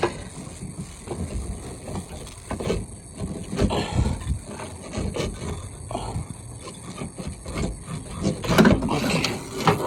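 Irregular knocks, clicks and scraping of tools and metal parts being handled in the engine bay while the old brake booster is worked loose, with bursts of busier clatter about a third of the way in and again near the end.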